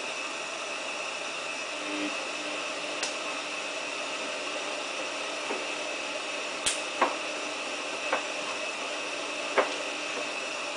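Samsung WF8804RPA washing machine in its prewash: a steady hiss, with a short low hum about two seconds in and several sharp clicks and knocks in the second half.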